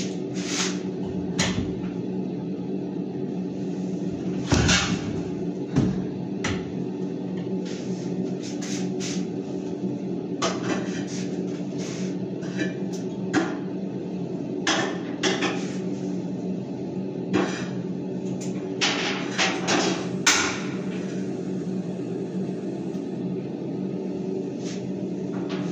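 Kitchen cooking noise: irregular knocks, clicks and clinks of pots and utensils being handled at the stove, over a steady low hum.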